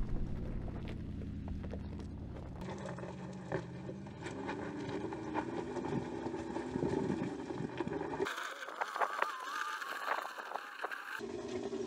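Mercedes-Benz G-Class engine working under load on a loose gravel slope, its pitch rising as it accelerates, with stones ticking and crunching under the tyres. The sound changes abruptly about two and a half seconds in and again about eight seconds in. From about eight to eleven seconds the low engine sound drops out, leaving a thinner, higher engine note before the fuller sound returns.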